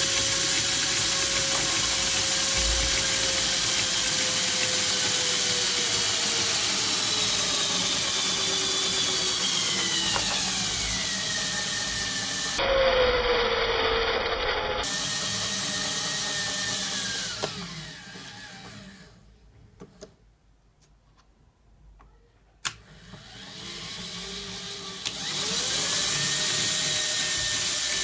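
Small DC motor driving a 3D-printed PLA herringbone gear reduction, whirring loudly with a motor whine that slowly sinks in pitch as the motor slows. Partway through it stops and goes almost silent for a few seconds. After a click it starts again, the whine rising in pitch and then running steady.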